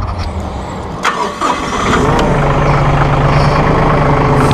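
Massey Ferguson 1734E compact tractor's diesel engine being started. It catches about two seconds in and settles into a steady idle.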